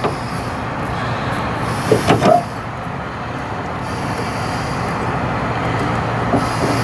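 School bus engine idling steadily, with a brief clatter of metal handling about two seconds in.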